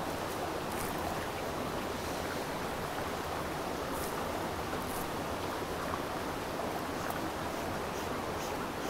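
Brook water running steadily, an even rushing wash. A few faint ticks about halfway through.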